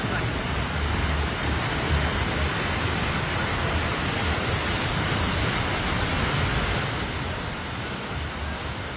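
Ocean surf breaking and washing against a rocky cliff shore, a steady rushing wash, with wind buffeting the microphone in low gusty rumbles.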